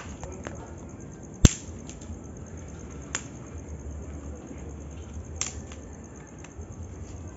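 Dry sticks snapping as they are broken by hand: a sharp crack about one and a half seconds in, then smaller cracks near three and five and a half seconds, with faint rustling of twigs between.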